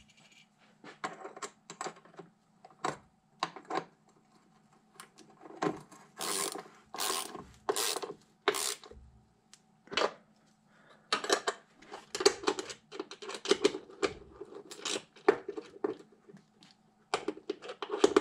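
Ratchet wrench clicking back and forth in short strokes as a bolt holding a bracket is tightened down. The strokes come in groups, the loudest about a third of the way in, then a quicker run through the second half.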